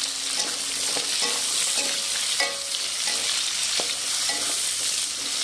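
Vegetables sizzling in hot oil in a wok while a spatula stirs them, scraping the pan in short strokes roughly every half second over a steady frying hiss.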